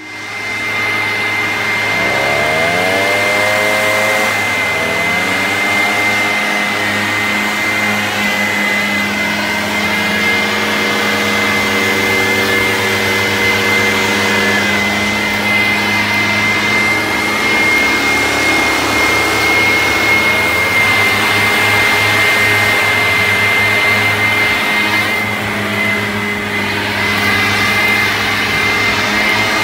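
Gas-powered leaf blower running steadily close by, with a constant high whine; its engine note rises a few times as it is revved up.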